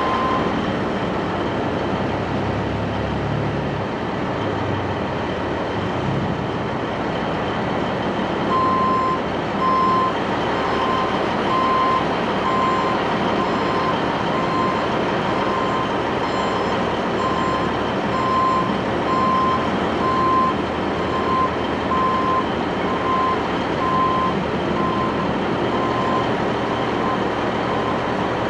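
A vehicle's reversing alarm beeping at a bit more than one beep a second. It stops just after the start and resumes about eight seconds in. Under it, a diesel engine runs steadily at idle.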